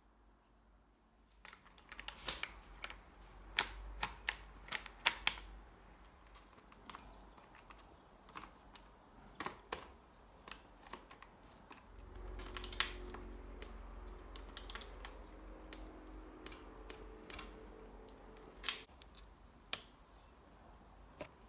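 Clusters of small clicks and metallic taps as bicycle parts are handled and fitted: a saddle being clamped onto its seatpost, and a Campagnolo brake caliper being adjusted with an Allen key.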